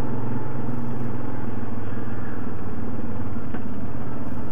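ATV engine running steadily, with no revving or change in pitch.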